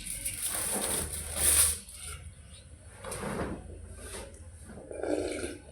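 Close-miked eating sounds: a mouthful of watery panta bhat rice and side dishes being chewed and slurped. The sounds come in three rounds, the loudest in the first second and a half.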